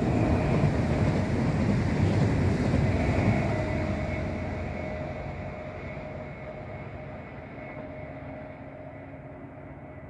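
Tail end of a heavy freight train rolling past, wheels rumbling on the rails, loudest in the first few seconds and then fading steadily as the train draws away, with a faint steady whine held throughout.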